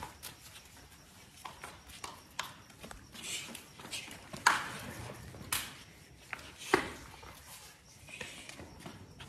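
Hurried footsteps on a hard floor with scattered knocks and clicks, and a few louder sharp thumps in the middle of the stretch.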